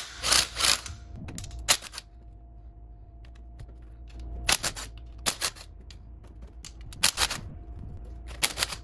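Cordless drill with a socket extension spinning out the clutch cover bolts of a 125 cc ATV engine, in several short bursts with pauses between them.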